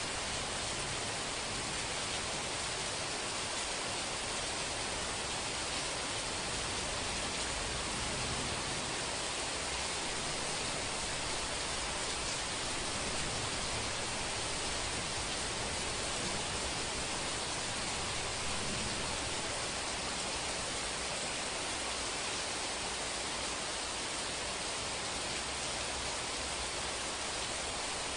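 Steady heavy rain: a dense, even hiss that holds constant throughout.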